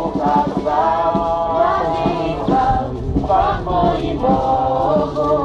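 A crowd of pilgrims singing a Polish worship hymn together, many mixed voices carrying the melody in unison.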